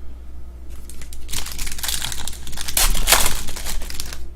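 A trading card pack wrapper crinkling and tearing open. The rustle starts about a second in and is loudest near the three-second mark.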